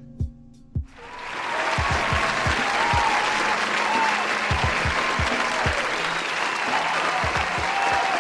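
Audience applause with cheering, starting about a second in and holding steady.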